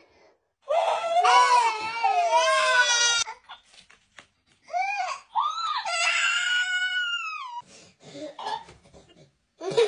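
Babies crying: a loud, wavering wail about a second in, then a second, higher-pitched cry a few seconds later.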